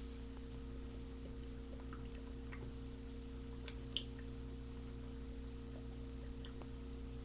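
Quiet room tone with a steady electrical hum and a few faint small clicks, the clearest about four seconds in.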